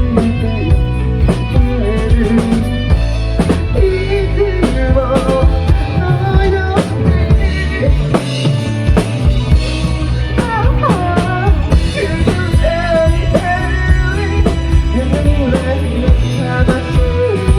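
Band music with a full drum kit keeping a steady beat (kick and snare hits) under a singing voice.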